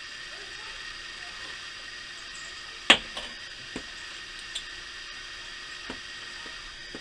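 A sharp click or knock about three seconds in, followed by a few lighter clicks, over a steady background hiss.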